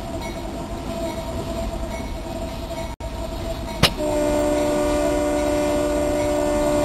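Freight train rolling along the rails with a low rumble. About four seconds in there is a sharp click, and then the locomotive's air horn comes in with a steady, louder chord that holds.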